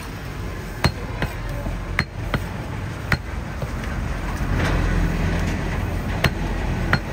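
Heavy butcher's cleaver chopping goat meat on a wooden chopping block: about seven sharp, irregularly spaced chops. A low rumble swells in the background around the middle.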